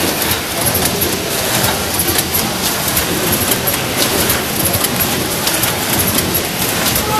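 Automatic pouch-packing machine running: a steady, dense mechanical clatter with a hiss.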